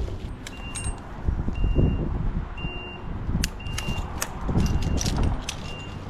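A work machine's reversing alarm beeping about once a second over its running engine, with scattered sharp snaps and knocks.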